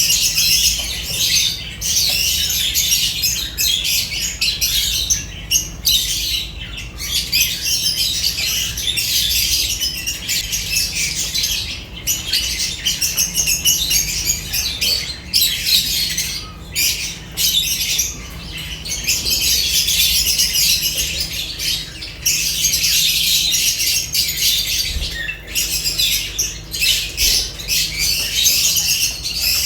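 Several lovebirds calling at once in a dense, high-pitched chatter, with a few short lulls.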